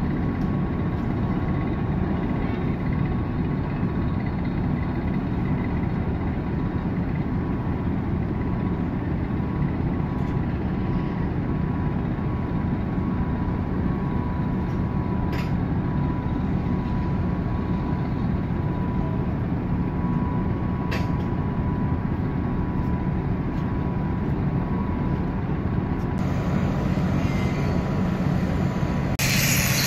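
Steady mechanical drone of a moored ferry's engines running, with a constant whine above a low hum. A louder hiss joins near the end.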